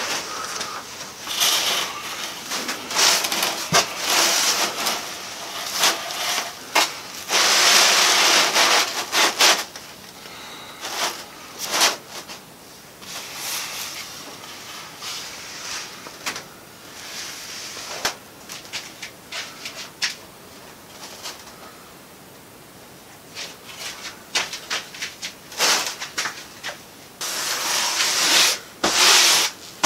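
Dry woven glass-fibre cloth rustling and swishing as it is spread over a Styrodur foam panel and smoothed flat by hand. It comes in spells, loudest about eight seconds in and again near the end, with a quieter stretch past the middle.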